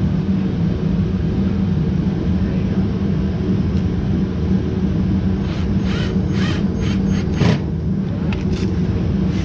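Steady low mechanical hum throughout. A bit past the middle there is a quick run of sharp clicks and knocks, about three a second, then a couple more near the end, as a plastic garden-edging lip is worked into place under a car's front bumper for screwing on.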